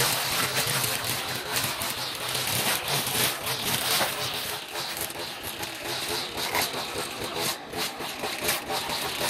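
Stihl petrol strimmer running while cutting weeds, its engine note wavering under load, with many short ticks of the line striking stems and debris.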